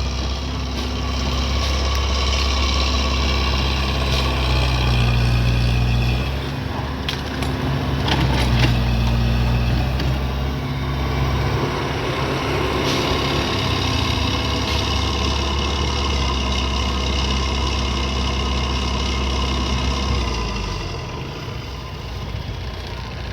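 Excavator's diesel engine running steadily, its note shifting up and down as the machine works, with a few sharp knocks about seven to nine seconds in. The engine eases down near the end.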